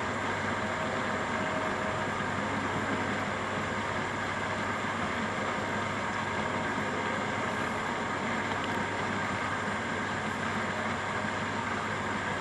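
Steady mechanical hum and hiss of running reef-aquarium equipment, pumps and circulating water, unchanging throughout.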